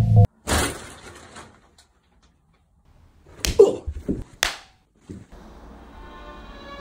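A shower curtain is swept aside with a sudden swish about half a second in. A couple of seconds later comes a cluster of thumps and knocks as a person falls to the floor tangled in it. Quiet music comes in near the end.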